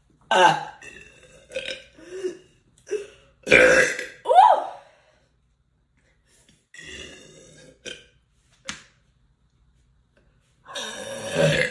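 A person burping over and over: several short burps early, the longest and loudest about three and a half seconds in with its pitch sliding, then quieter ones, and another long burp near the end.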